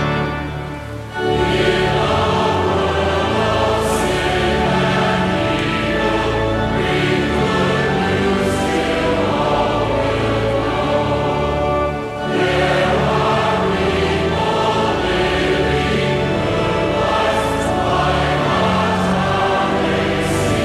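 Choir singing with a sustained accompaniment that holds steady low notes, in phrases with short breaks about a second in and again near twelve seconds.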